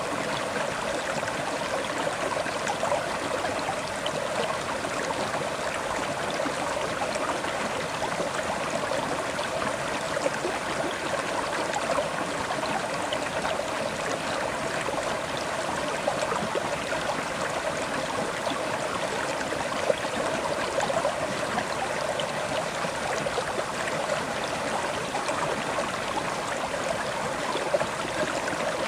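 River water flowing steadily over rocks, a continuous rushing and babbling with small trickles.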